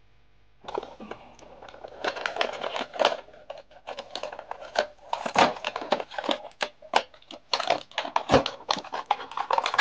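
Toy packaging being handled: a clear plastic tray crinkling and scraping against its cardboard box as it is worked out, a rapid, irregular run of crackles and rustles starting about a second in.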